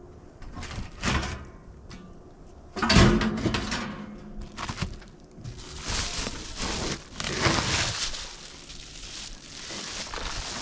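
Handling noises as a pump compartment is opened up: scraping and crinkling, with a heavy thump about three seconds in.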